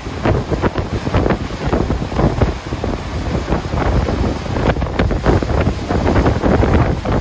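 Wind buffeting the microphone aboard a moving passenger ship, in uneven gusts, over the rush of the boat moving through the water.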